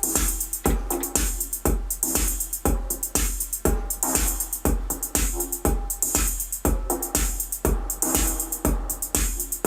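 Repetitive electronic music from a Korg Volca Keys analog synthesizer playing short, looping notes over a drum-machine beat. A deep kick thumps about twice a second, with bright hi-hat hiss between the beats.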